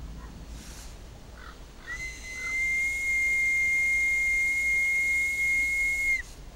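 A homemade green-willow bark whistle blown in one long, steady, high note of about four seconds, starting about two seconds in and dipping slightly in pitch as it cuts off.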